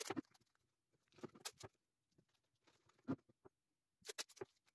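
Paper masking tape being pressed and smoothed by hand onto a 3D-printed plastic part: faint crinkly rustles in about four short bursts.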